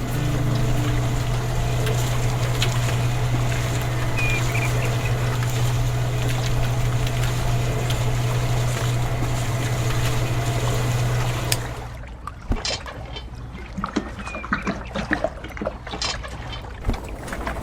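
A small motor hums steadily while water trickles and splashes. About twelve seconds in the hum stops, leaving only trickling, small clicks and crackles.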